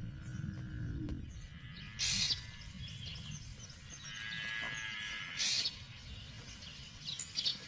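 Oxpeckers calling: two short hissing calls about three seconds apart, with softer chirping between them.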